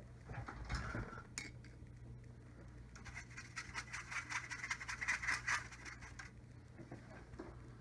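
Rapid, faint scratching and rubbing strokes of a drawing or painting tool across a Masonite hardboard panel, blocking in a shape. A few soft knocks and a click come first as things are set down.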